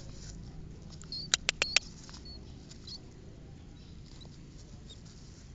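A rat squeaking in short, high chirps while a dog noses at it, with four loud, sharp clicks in quick succession about a second and a half in.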